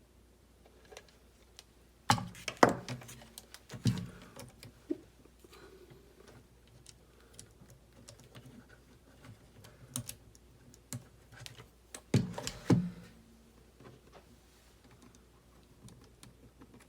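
Small plastic and metal kit parts and tools being handled on a workbench: scattered clicks and light knocks, with louder clattering about two seconds in and again about twelve seconds in.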